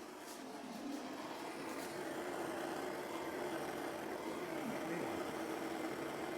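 Gas blowtorch flame burning steadily, a continuous hiss with a low hum that gets a little louder about a second in, heating a lead pipe to melt and spread tin solder.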